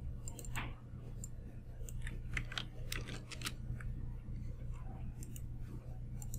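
Scattered short clicks from a computer mouse and keyboard, irregularly spaced, over a steady low hum.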